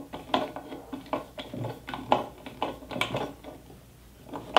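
Screw being tightened by hand with a wooden-handled screwdriver through a metal vise jaw into its wooden jaw face: a run of irregular small clicks and ticks as the blade grips and the screw turns, dying down briefly near the end before a sharper click.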